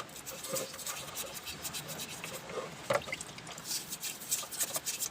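Irregular scratchy rubbing strokes of a cloth wiping down a motorcycle.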